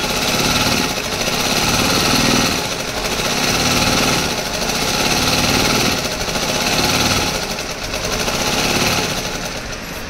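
Domestic sewing machine running fast, its needle and mechanism rattling as it stitches a tassel fringe onto fabric. The running swells and eases several times, then drops off near the end.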